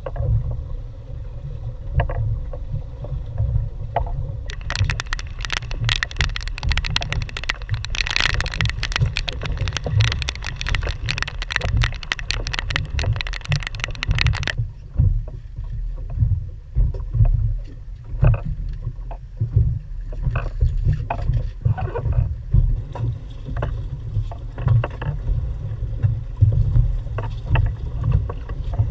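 Low rumble of wind on the microphone aboard a small boat rocking at sea, with water lapping the hull and scattered knocks from handling fish and gear. A dense crackling hiss runs through the first half and cuts off suddenly.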